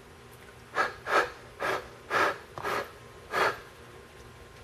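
Six short, hissing puffs of breath in quick succession, about half a second apart.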